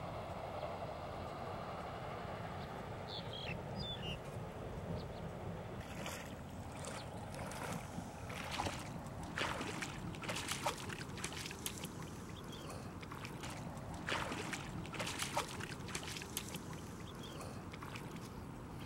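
Lake water sloshing gently, then the splashing steps of someone wading through shallow water. The splashes come as a string of uneven, sharp sounds from about six seconds in.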